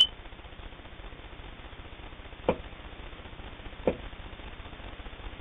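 Handling sounds at a sewing machine: a sharp click at the start, then two brief soft knocks about a second and a half apart, over a faint low hum. The machine is not sewing.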